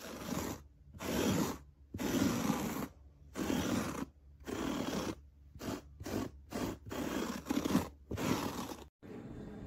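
A metal-bladed pet hair remover rake scraped across a carpet rug in about ten short strokes, quicker toward the end, dragging embedded pet hair out of the pile.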